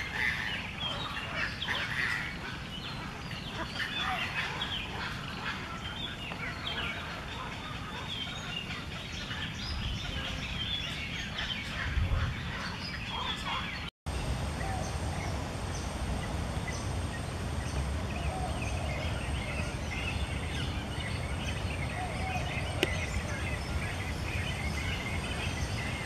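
Many overlapping short calls from a nesting colony of waterbirds. There is an abrupt cut about halfway through, after which a similar chorus carries on with some lower calls and a thin steady high tone.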